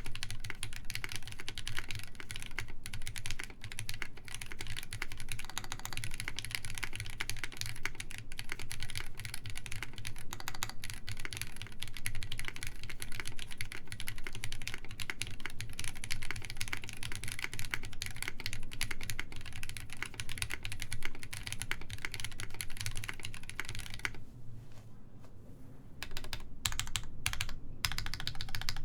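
Fast typing on a Sperno59 mechanical keyboard with lubed SP Star Meteor White switches, GMK Maestro keycaps and an FR4 plate, no foam inside: a dense run of key clicks. Near the end the typing stops for about two seconds, then starts again with separate keystrokes.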